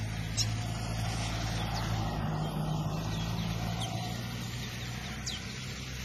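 A motor vehicle's engine runs nearby with a steady low hum that fades after about four and a half seconds. A few short, high chirps from small birds are heard over it.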